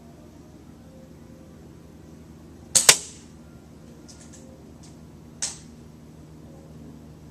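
Airsoft sniper rifle firing: a sharp double crack about three seconds in, then a few soft clicks, and another smaller sharp crack a little before the end.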